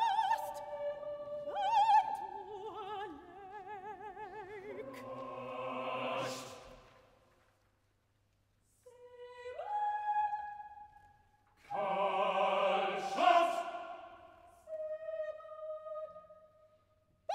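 Soprano singing a fast operatic line with wide vibrato, then a chamber choir chord that swells from very soft to loud and breaks off. After a brief silence, the choir comes back in short entries, ending on a loud accented chord and held notes.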